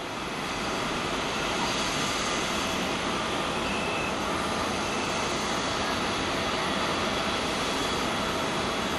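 Boeing 767-381 airliner's twin jet engines at take-off power during its take-off roll. The engines make a steady, dense jet noise that fades in over the first second and then holds an even level.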